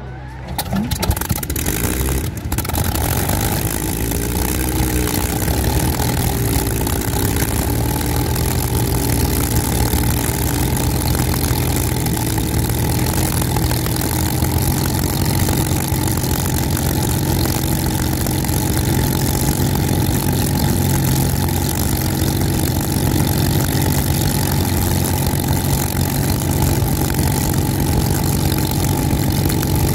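Two-seat Spitfire's Rolls-Royce Merlin V12 being started: it turns over and catches about two seconds in, then runs loud and steady. Its speed wavers for several seconds before settling into a steady idle.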